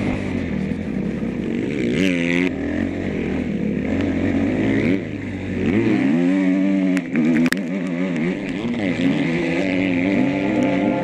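Motocross bike engine heard on board while riding, revving up and down with the throttle. Its pitch drops sharply and climbs back about two seconds in and rises again around six seconds, with a couple of sharp knocks near seven seconds.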